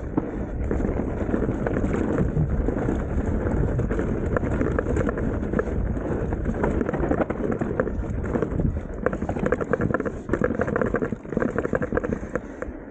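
Mountain bike riding down a rutted dirt trail: a continuous rush of tyre and wind noise, scattered with rapid clicks and rattles from the bike.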